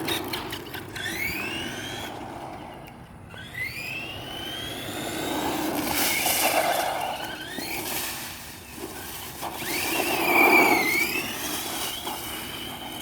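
Redcat Volcano EPX Pro RC monster truck's brushless electric motor whining, its pitch rising several times as the truck speeds up and dipping near the end, over a rushing noise.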